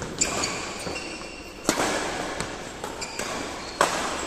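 Badminton racquets striking a shuttlecock during a doubles rally: three sharp smacks about two seconds apart, with lighter clicks between, echoing in a large hall.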